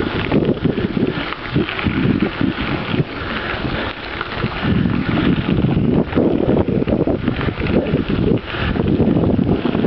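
Wind buffeting the microphone on a moving bicycle, with the rumble and rattle of the bike rolling over a rough trail.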